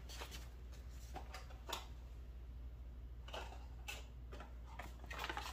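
Faint scattered clicks and rustles of small objects being handled, the sharpest a little under two seconds in, over a steady low hum.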